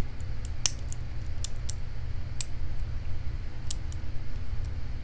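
Lock pick working the pins inside a challenge lock: scattered light metallic clicks and scrapes, with the pins felt to be overset.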